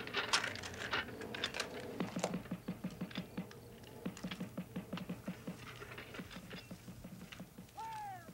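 A small handheld device, seemingly a pocket tape recorder, being handled and fiddled with: a run of quick, irregular light clicks and rattles, thickest through the middle.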